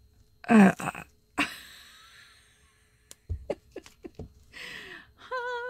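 A woman's wordless vocal sounds: a short exclamation with a falling pitch about half a second in, a long breathy exhale, then a high, wavering hum near the end. In between come a few light clicks and taps as small resin pieces are handled on the table.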